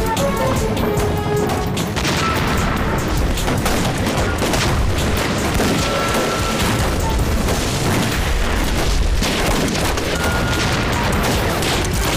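Film battle soundtrack: repeated gunfire and booming explosions under background music.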